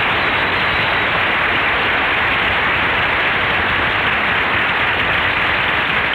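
Studio audience applauding, a steady even clatter of clapping that dies away at the end.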